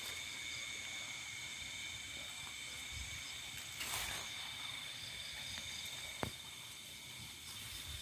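Night insects calling steadily in several high, continuous pitches. A brief rustle comes about four seconds in and a single sharp click just after six seconds.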